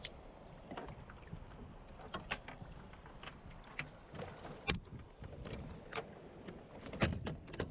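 Fishing kayak on open sea: a steady wash of water and wind, with irregular short knocks and clicks from the boat, the loudest about two thirds of the way in.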